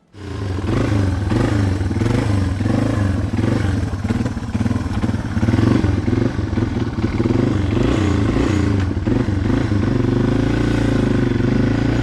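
1987 Yamaha TW200's single-cylinder four-stroke engine running on a ride, its pitch rising and falling with the throttle.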